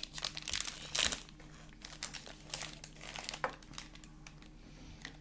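Cookie package wrapper crinkling and rustling as it is handled and torn open, loudest in the first second and fading to light rustles in the last couple of seconds.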